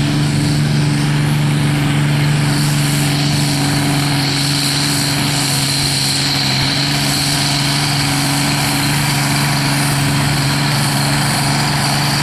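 Fordson diesel tractor engine running hard under full load as it hauls a weight-transfer sled, a steady deep drone. A high whistle joins in about three seconds in and holds.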